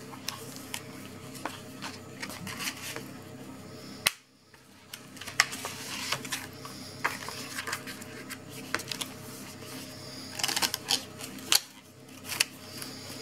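Faint steady background music under repeated sharp clicks and rustles of paper and card being handled, as a paper insert is fitted into a fauxdori traveler's notebook cover. The sound cuts out briefly about four seconds in and fades back.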